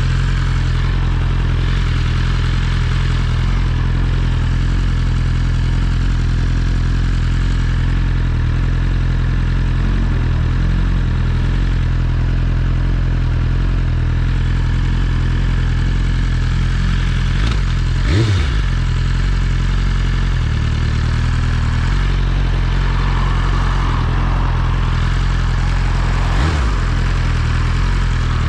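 BMW S1000RR inline-four engine running at a steady pace on the road. The note holds steady, broken twice by a brief sharp swing in pitch, about two-thirds of the way through and again near the end.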